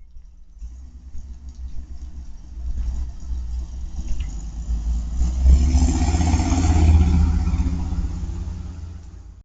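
A motor vehicle's low engine rumble, building steadily to a peak and then dying away.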